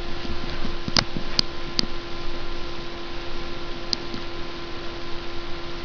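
Steady low hum with three quick sharp clicks about a second in and one more a few seconds later.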